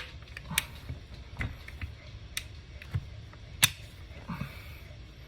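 Scattered sharp clicks and light knocks of AR-15 pistol parts being handled during reassembly, about six in all, the loudest a little before the four-second mark.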